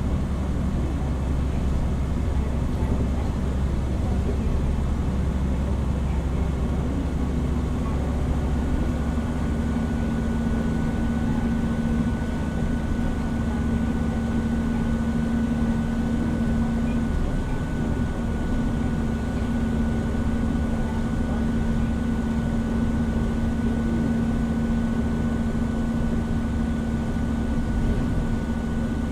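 Hino Rainbow HR city bus under way, heard from inside the cabin: a steady diesel engine drone and road rumble. After about eight seconds the deep rumble eases and a steady hum with a thin high whine settles in as the bus cruises.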